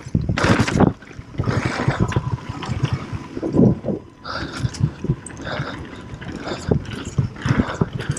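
Mountain bike descending a dirt and rock trail at speed: tyres rolling over loose dirt and stones with frequent knocks and rattles from the bike over bumps, and bursts of wind noise on the microphone.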